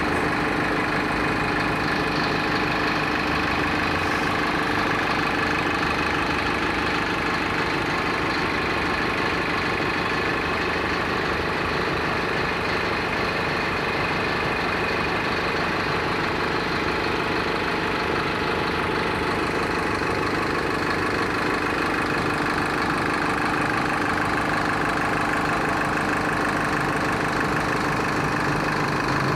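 School bus diesel engine rumbling steadily at a constant speed, with no revving.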